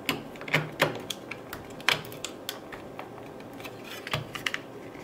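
Light irregular clicks and taps of a circuit board being handled and fitted into a 3D-printed PETG test jig, board and plastic knocking together, with the sharpest click about two seconds in and a quick run of clicks near the end.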